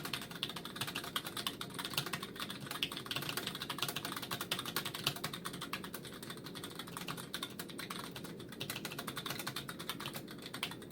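Steady, fast typing on a Cherry G84-4100 compact keyboard with low-profile Cherry ML mechanical key switches: a continuous run of quick key clicks.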